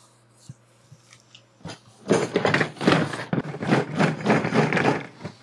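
Cardboard shipping box being opened: a few faint clicks, then from about two seconds in a dense run of rustling and scraping as the cardboard flaps are pulled back.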